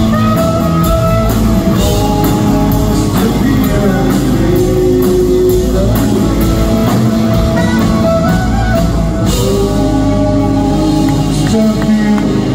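Rock band playing live, with guitar and a drum kit.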